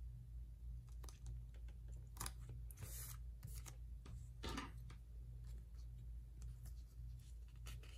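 Faint rustling and scraping of paper stickers being pressed onto a spiral planner page and smoothed by hand, with a few short scratchy sounds, the longest about three seconds in, over a steady low hum.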